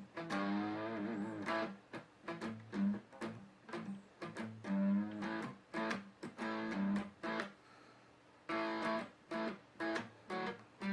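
Guitar being played, plucked and strummed chords ringing out, with a wavering bent note near the start and a short lull about seven seconds in before the chords resume.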